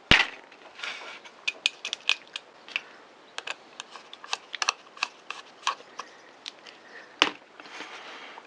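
Scattered light clicks and taps of small metal fishing-reel parts and a screwdriver being handled during reassembly, with a sharper knock right at the start and another about seven seconds in.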